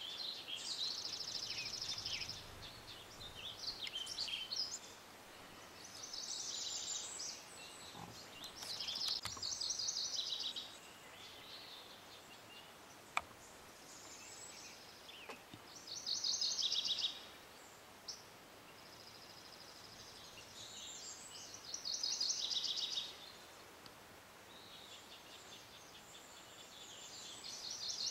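Songbirds singing: short, high trilled phrases repeating every two or three seconds over a faint outdoor hiss, with one sharp click about thirteen seconds in.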